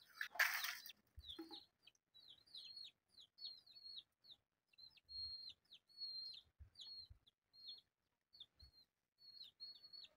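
A match struck and flaring about half a second in, then a bird chirping over and over in short high calls for the rest of the time, with a few faint knocks.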